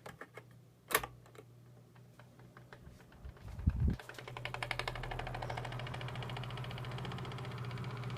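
1985 Tozai 12-inch table fan: a few clicks, a knock a little before four seconds in, then its motor starts and runs with a steady hum and a fast, even ticking over it.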